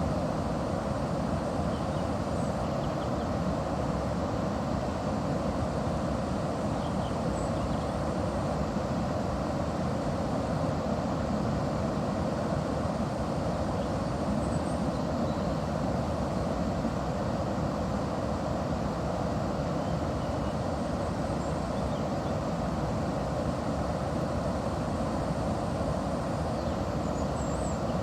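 Steady rush of river water at a watermill, a dense even noise with no rhythm. Faint high chirps come and go above it.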